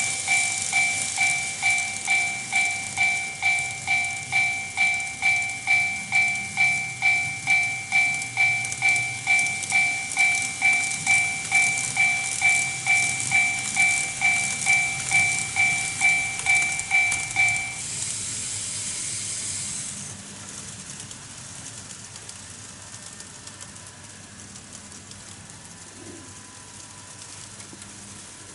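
Warning bell of a TOMIX Automatic Crossing II model level crossing, an electronic two-tone ding repeating a little under twice a second to warn of an approaching train. It stops about eighteen seconds in, leaving a quieter steady hiss.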